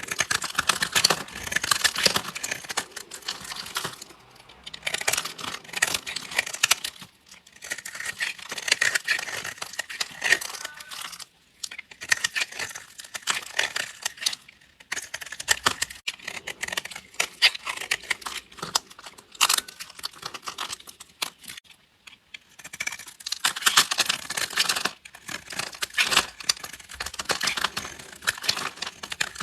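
Knife blade slicing through dry soap in repeated crunchy, crackling strokes, each run of cuts lasting a few seconds with brief pauses between them.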